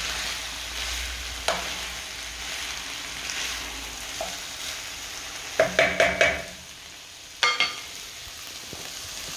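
Minced meat, rice and mixed broccoli, cauliflower and carrot sizzling in a frying pan as a wooden spatula stirs through them. A little past the middle come a few loud ringing clanks, then one more about a second later, after which the sizzle is quieter.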